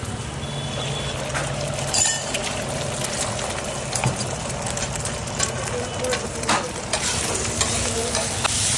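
Egg frying in oil on a large flat metal griddle (tawa), with a steady sizzle. A metal spatula scrapes and knocks against the griddle a few times as it breaks up the egg.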